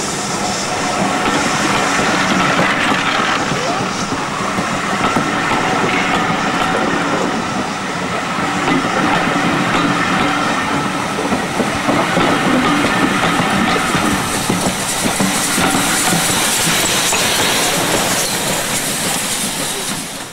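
Passenger coaches of a steam-hauled train rolling past close by, a steady rushing rumble with the wheels clicking over the rail joints.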